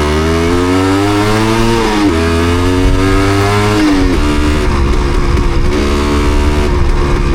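Yamaha DT250MX single-cylinder two-stroke engine running under way, its revs climbing and then dropping sharply twice, about two and four seconds in, and sounding rougher after that. The bike has a misfire that the rider puts down to water on the spark plug.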